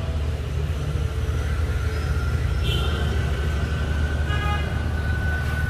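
Street traffic: a steady low rumble of passing vehicles, with a vehicle horn sounding a flat, steady note about four seconds in.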